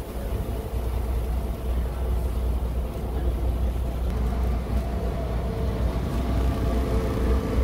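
A boat's outboard motor running steadily under way, a continuous low drone heard from aboard.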